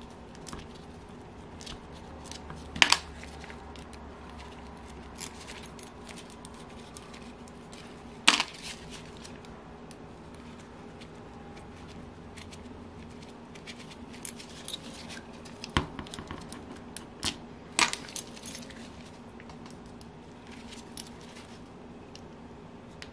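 Sharp metal clicks and clinks from small engine parts and tools being handled on the bench during disassembly of a Saito FA-82 model engine. A few isolated clicks, the loudest about 3 and 8 seconds in, then a cluster of them between about 15 and 18 seconds.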